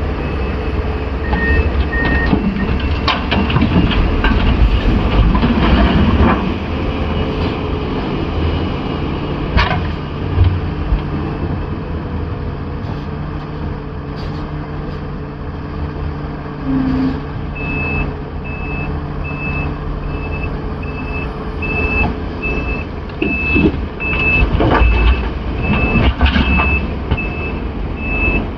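Komatsu PC500 excavator's diesel engine working under load, with several heavy clanks as the bucket digs and handles rock. About two-thirds of the way in, a reversing alarm starts beeping steadily at a regular pace.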